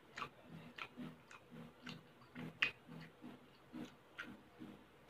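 Close-up chewing of a mouthful of baked mussels: soft wet mouth clicks and smacks, about two a second, with one sharper click a little past the halfway mark.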